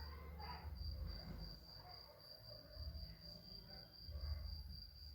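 Faint, steady high-pitched trill, typical of a cricket, running throughout, over low intermittent rumbling.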